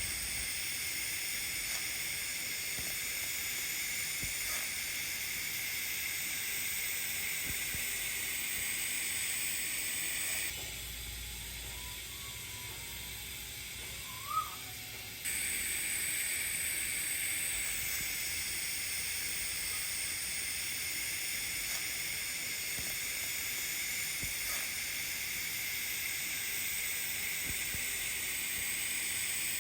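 TIG (GTAW) welding arc on carbon-steel pipe during a freehand root pass at 90 amps: a steady hiss. About ten seconds in the hiss drops away for roughly five seconds, with one short blip near the end of the gap, then comes back at the same level.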